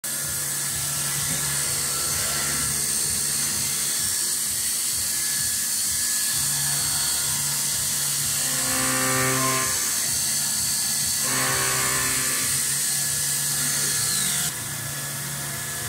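Microcut VMCF 760 vertical machining center drilling metal: the spindle runs steadily under a hiss of flood coolant, and the drill cutting into the workpiece rings out in two pitched stretches around the middle. The sound drops suddenly near the end.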